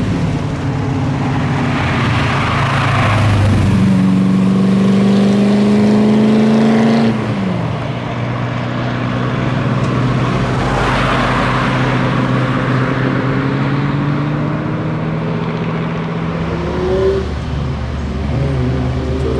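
Car engines running close by. About four seconds in, one engine accelerates, its pitch climbing steadily for about three seconds before it drops abruptly. The engine sound then carries on steadily, with a brief blip of revs near the end.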